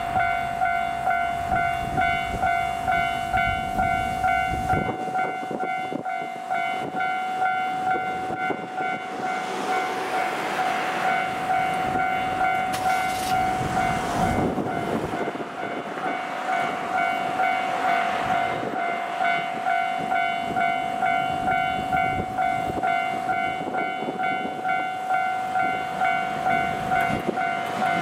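Japanese railway level-crossing bell ringing in a steady repeated electronic ding, about three strikes every two seconds. Beneath it, a DE15 diesel-hydraulic locomotive with a Russell snowplough approaches, its engine and running noise swelling in the middle.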